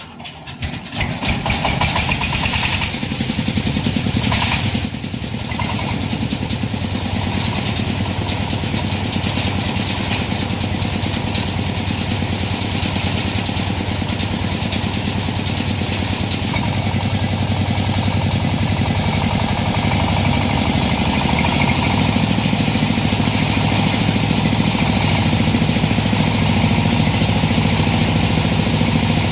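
Dongfeng 30 HP diesel engine on a corn sheller starting up in the first second or so, then running steadily, as on a test run.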